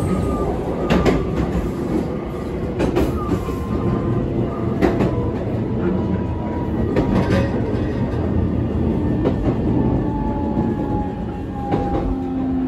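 Electric passenger train running, heard from inside the car: wheels clicking over rail joints every second or two above a steady rumble. A faint whine drifts slowly down in pitch, as the train slows into a station.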